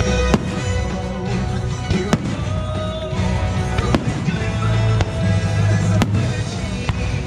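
Fireworks bursting over the fireworks show's music: four sharp bangs about two seconds apart stand out above the music.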